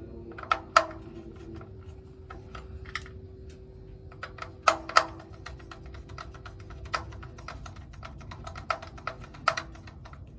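Irregular light clicks and taps of tools and fittings being handled, with a few sharper knocks: about a second in, around the middle and near the end. A faint steady hum runs underneath.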